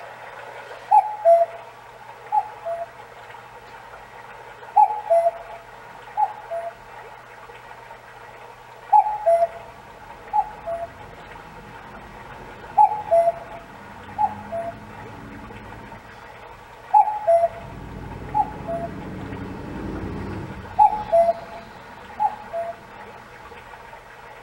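Seiko FS510B wall clock's hourly bird chime: a recorded common cuckoo calling its falling two-note "cuck-oo", in pairs about every four seconds, twelve calls in all. The calls play over a recorded babbling-stream sound, and a low rumble swells midway.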